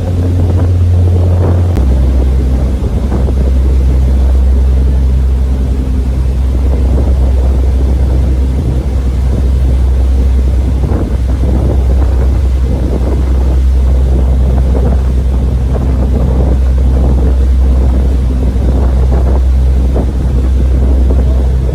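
Tour boat's engine running with a loud, steady low drone that steps down slightly in pitch about two seconds in.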